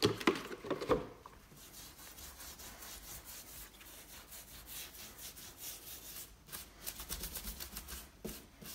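A small hand brush scrubbing weathered macrocarpa wood: a few hard strokes in the first second, then softer steady scrubbing, and a quick run of short strokes near the end.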